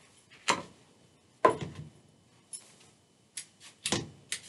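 Scattered knocks and clicks of kitchen utensils handled on a countertop, about six in all, the loudest about a second and a half in.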